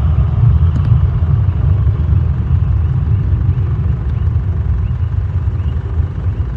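Low, steady rumble of a JetBlue airliner's jet engines on its takeoff departure, easing off slightly near the end.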